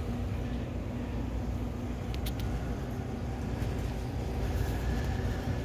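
Steady low rumble of background noise, with a couple of light clicks about two and a half seconds in.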